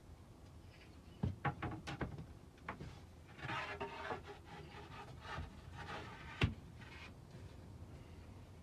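Wooden cabinet panels being handled and fitted together: a few light knocks about a second in, board edges scraping and rubbing against each other, then one sharp knock later on.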